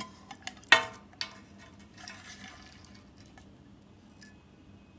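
Marshall metal channel footswitch being handled and turned over: a few clicks, then a sharp metallic clink with a short ring under a second in and another knock just after, followed by a brief scrape.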